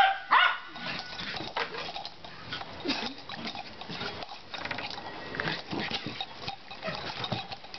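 A dachshund growling and snarling as it goes after an exercise ball, in short rough bursts. The loudest moment is a sharp bark just after the start.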